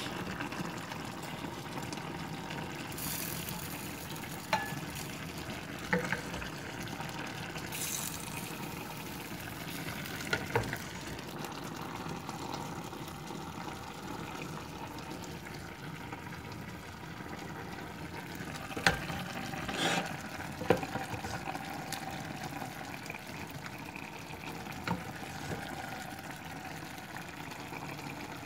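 Fish and vegetable soup simmering in a stainless steel pot with a steady bubbling hiss, while a wooden spoon stirring and turning the fish knocks against the pot now and then, a few times close together about two-thirds of the way through.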